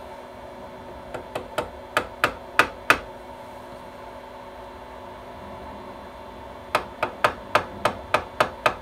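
A run of light, sharp taps on the aluminium DRO scale of a drill press knee, knocking it into line against dial test indicators: about eight taps getting louder, a pause of a few seconds, then about ten more. A steady hum runs underneath.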